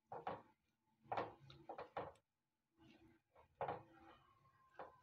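Faint, irregular knocks and scrapes of a spoon stirring boiled fenugreek leaves and peas in a steel pan.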